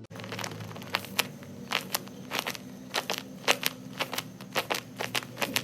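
Crinkling and crackling of a handmade paper squishy (a Takis Fuego bag) being squeezed, with irregular sharp crackles several times a second over a low steady hum.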